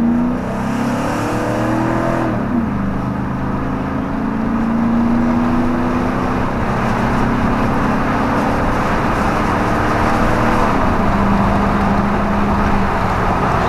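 5.3L Vortec V8 with shorty headers and a Dynomax exhaust, heard from inside the cab under hard acceleration. The engine note climbs, drops at an upshift about two and a half seconds in, climbs again, drops at a second upshift near eleven seconds, then holds steady.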